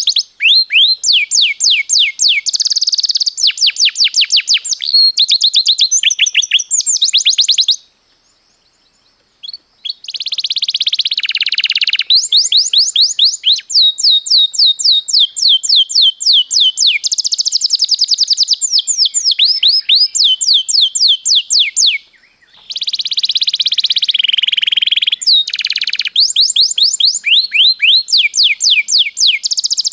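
Domestic canary singing long rolls: fast repeated downward-sweeping notes run together into trills, alternating with denser buzzing passages. The song breaks off for about two seconds about a quarter of the way in and briefly again about three-quarters through.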